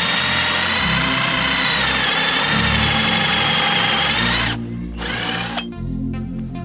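Angle grinder motor whining at full speed, its pitch dipping briefly about two seconds in, then stopping abruptly over halfway through. Background music with a steady beat plays under it and carries on alone afterwards.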